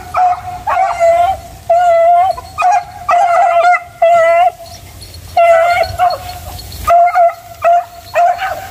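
Beagle baying on a hunt, a string of short, wavering howled yelps about every half second to a second, the hound giving tongue as it works the scent of a civet.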